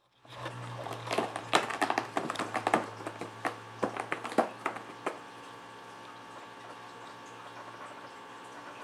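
A cat batting and playing with a toy: irregular taps and clicks for about five seconds, over a steady low hum that continues after the tapping stops.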